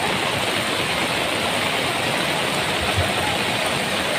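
Swollen river in flood, its churning brown water making a steady, loud rushing noise, mixed with heavy rain. A brief low thump about three seconds in.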